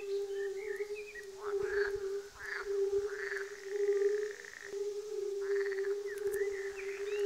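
Frogs calling: a steady unbroken humming tone, with several short pulsed croaks and brief high chirps over it.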